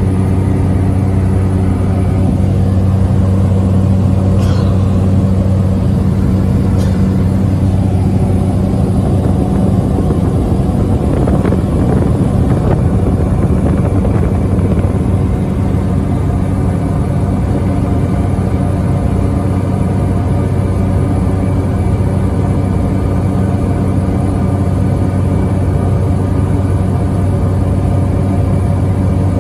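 Small propeller aircraft's engine droning loudly and steadily, heard from inside the passenger cabin. About ten seconds in, its clear low hum turns rougher and noisier.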